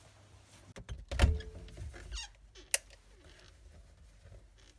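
A door pushed by hand: a heavy thump about a second in, then a single sharp click near the middle.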